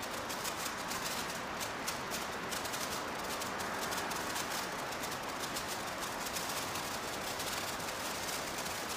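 Large-ball senko hanabi (Japanese incense-stick sparkler) burning: a fine, faint crackle of sparks from its molten ball over a steady hiss.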